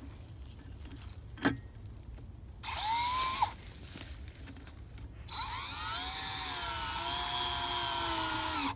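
Cordless drill driving one-inch lag bolts through a steel bracket into a log: a short run about two and a half seconds in, then a longer run from about five seconds in whose motor pitch sags and wavers as the bolt bites. A sharp click comes about a second and a half in.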